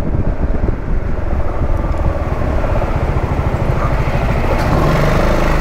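Honda Forza 350 scooter under way, its single-cylinder engine running beneath a steady rumble of wind and road noise on the microphone.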